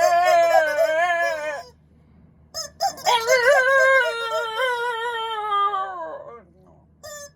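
Black Shiba Inu howling along to a squeaky toy, two long wavering notes, the second the longer and sagging in pitch as it fades.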